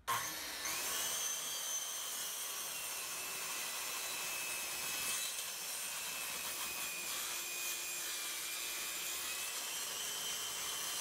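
DeWalt corded circular saw starting up suddenly, its whine rising over the first second, then cutting steadily through a thick wooden board at a 30-degree bevel.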